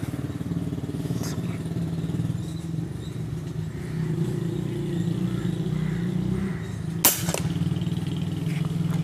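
A single shot from a .22 SPA P10 PCP air rifle about seven seconds in: one sharp crack. A steady low engine-like drone runs underneath.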